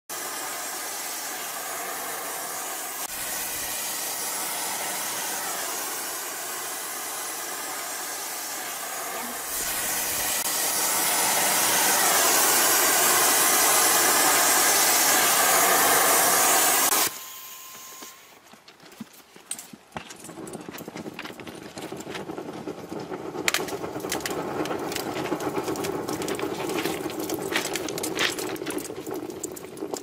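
Rail-joint welding hissing loudly and steadily, growing louder about ten seconds in and cutting off abruptly a few seconds later. Quieter scattered clicks over a steady lower rush follow.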